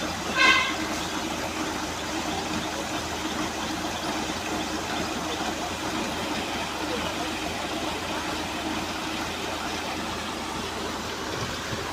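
Engine-driven bore-well washing machine running steadily with a constant rushing noise and a low hum, as the well is flushed. About half a second in, a brief loud high-pitched sound cuts in over it.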